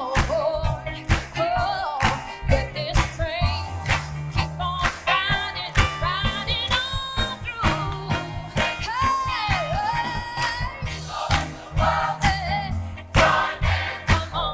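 A woman singing lead into a microphone with a gospel choir and band: an upbeat soul song with a steady beat and a strong bass line.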